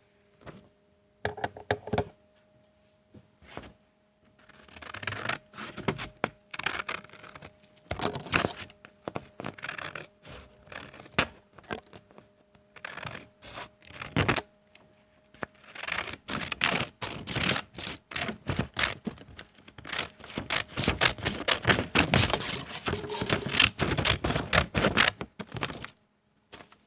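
Scissors cutting paper: sharp snips with paper rustling, scattered at first, then fast and nearly continuous over the last ten seconds or so.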